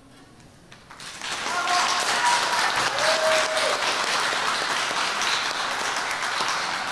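Audience applauding, the clapping starting about a second in and continuing steadily.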